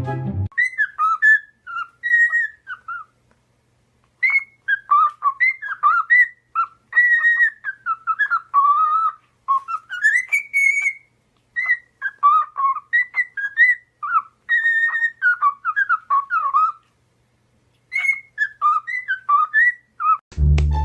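Parrot whistling a tune in quick, high, gliding notes, phrase after phrase, with two short pauses.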